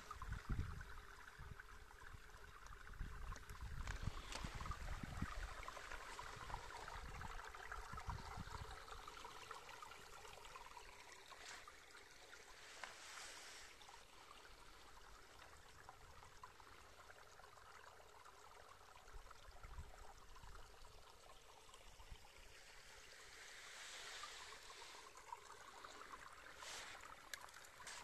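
Small brook babbling and trickling over rocks, faint and steady. Low rumbles come and go over the first eight seconds or so.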